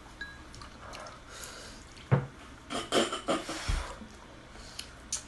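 People slurping and eating spicy noodles, a few short wet slurps and smacks bunched between about two and three and a half seconds in.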